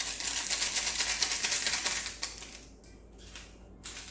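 Plastic packaging crinkling as it is handled, a dense run of fast crackles for about two seconds, then quieter.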